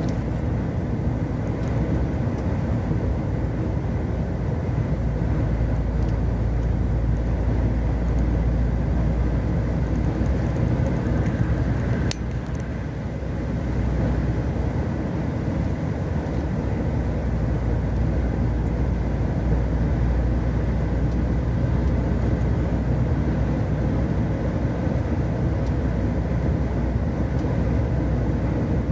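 Steady drone of a vehicle's engine and tyres on a wet motorway, heard from inside the cab. There is one short click about twelve seconds in.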